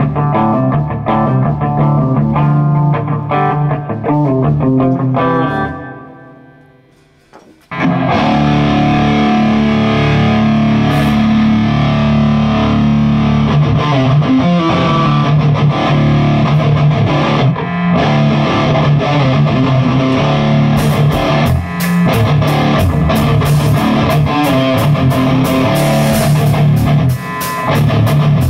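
Distorted electric guitar playing chords and riffs; it dies away for about two seconds, then comes back in loud and full. Near the end a drum kit joins in, with steady cymbal strokes.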